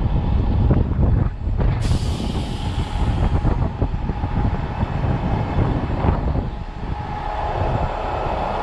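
Heavy diesel truck running close by with a dense low rumble. A sharp hiss starts suddenly about two seconds in and fades away over the next couple of seconds.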